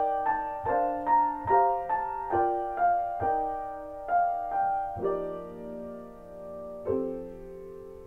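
Background music: a piano playing a melody of single struck notes, about two to three a second, then two held chords about five and seven seconds in.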